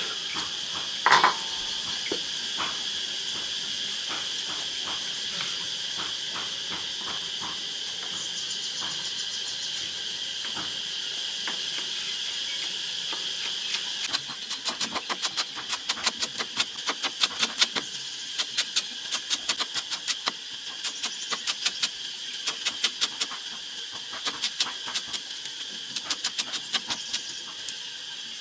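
Steady high-pitched insect chirring. From about halfway through, a rapid irregular run of sharp clicks or taps, several a second, joins it, and a single louder knock comes about a second in.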